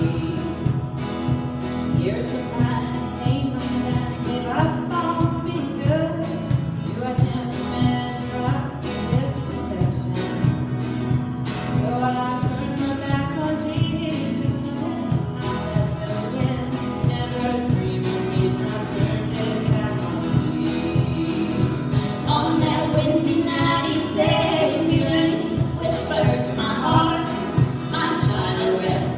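A band playing a song with singing over a steady strummed, rhythmic accompaniment.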